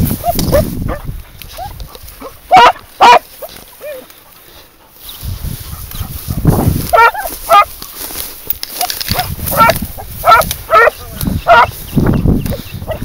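Hunting dog giving tongue on a scent trail in short, sharp barks: two about a third of the way in, then a run of seven or eight from about halfway. Between the barks there is rustling as the dog pushes through dry grass and scrub.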